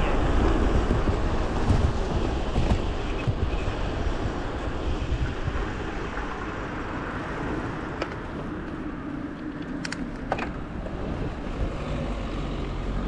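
Wind buffeting a handlebar-mounted microphone on a moving bicycle, with tyre rumble on asphalt. It is loudest at the start and eases off in the middle as the bike nears a junction. There are a few sharp clicks about ten seconds in, and a car's engine is heard near the end.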